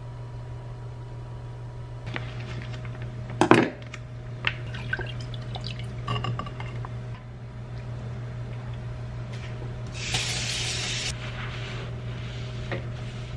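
Liquid squeezed and poured from a cut plastic pouch into a black earthenware pot, with the pouch and pot knocking and clicking, one louder knock early in. Near the end a paper towel rustles and wipes across the counter, over a steady low hum.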